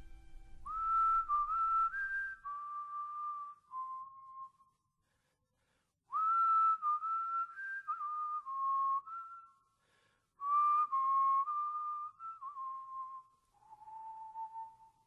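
Someone whistling a slow tune in three phrases of about four seconds each, with short gaps between them; each note is a single clear pitch.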